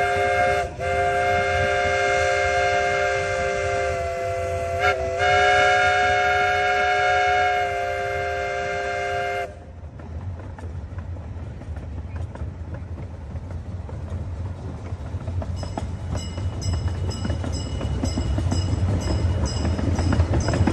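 Miniature steam locomotive's chime steam whistle blowing one long, steady chord, broken briefly twice, then cutting off about nine and a half seconds in. After that comes the low rumble of the train rolling along the rails, growing louder toward the end.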